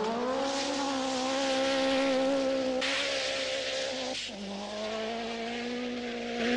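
Rally car engine running hard at high revs, holding a steady pitch under a rushing hiss; about four seconds in the pitch drops sharply and then holds again.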